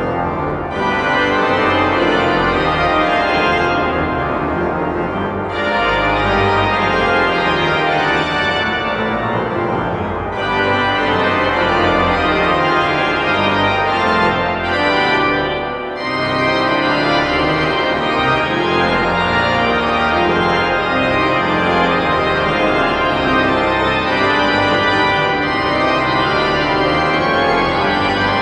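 The 1912/13 Goll & Cie. pipe organ playing loud, dense sustained chords over low bass notes, the harmony shifting every few seconds.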